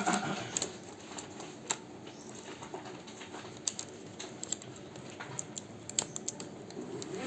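Scattered single key clicks at irregular spacing over a faint steady background, typical of keys being pressed one by one on a laptop keyboard.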